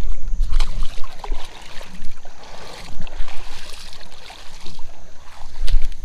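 Water splashing and sloshing in a shallow creek as a hooked pike is pulled in and landed, with scattered knocks and a low rumble on the microphone.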